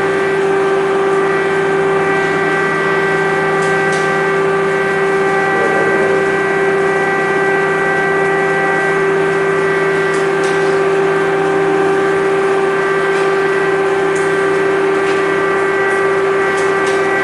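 Civil-defence air-raid siren holding one long, steady tone with several overtones, at a constant loud level.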